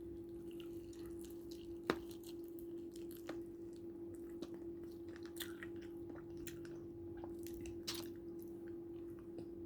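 A person chewing and biting fried chicken, with irregular small mouth clicks and one sharper click about two seconds in.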